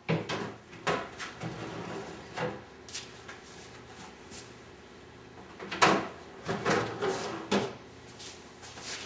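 Wooden drawer being handled and slid along its slides in a wooden cabinet, a string of knocks and scrapes of wood on wood, the loudest knock about six seconds in.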